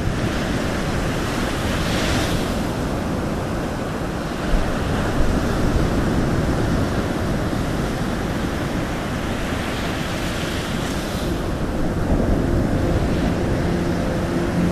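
Ocean surf: a continuous rushing wash of waves that swells twice, about two seconds in and again around eleven seconds in. A faint low steady hum joins in the last few seconds.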